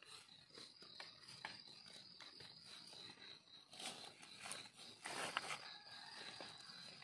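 Knife blade scraping and digging in dry sandy soil and leaf litter around a mushroom button, faint scattered scrapes and clicks with a louder rustling scrape about five seconds in. A steady high-pitched insect trill runs behind.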